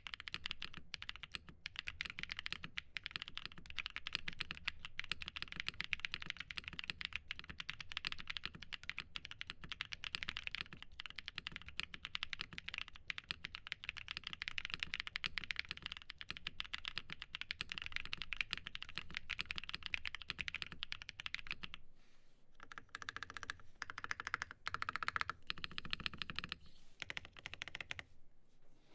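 Fast, continuous typing on a custom aluminium KBDFans TET mechanical keyboard with lubed and filmed Holy Panda tactile switches and GMK keycaps. The key clacks slow to sparser, separate presses over the last several seconds.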